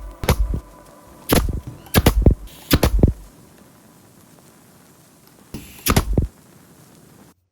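Sharp knocks in about five quick groups, four close together in the first three seconds and one more about six seconds in, then the sound cuts off to silence near the end.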